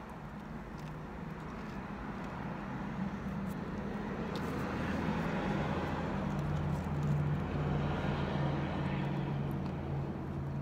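Car engine noise: a steady low hum, with a broader rushing sound that builds from about four seconds in and eases off near the end.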